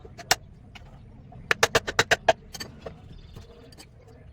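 Low steady hum of a running wood lathe, with sharp clicks and knocks on top: one near the start and a quick run of about six about a second and a half in.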